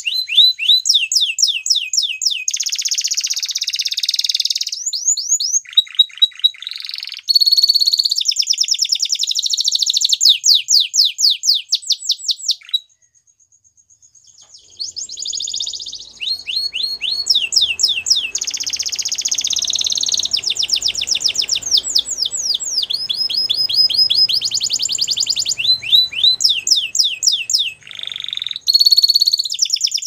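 Waterslager canary singing a long song of rapid high trills and rolling runs of repeated notes. The song breaks off for a second or two about halfway through, then resumes.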